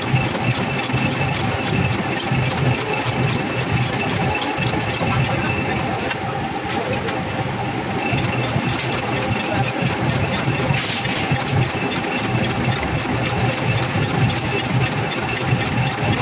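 Pan-forming machine with a vertical spindle running steadily: a low hum and a steady higher whine, with rapid, regular metallic clicking throughout.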